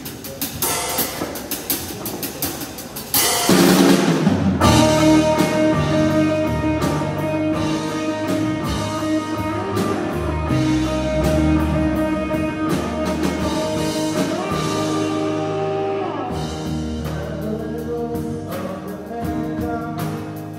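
Live rock band playing a song's instrumental intro on drum kit, electric and acoustic guitars, bass and keyboard. The full band comes in louder about three seconds in, with a cymbal wash.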